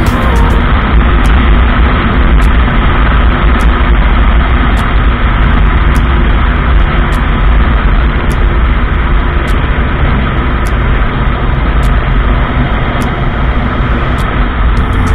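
Suzuki Boulevard M109R's 1783 cc V-twin motorcycle cruising at a steady road speed, its engine buried in a heavy, steady rush of wind on a bike-mounted microphone.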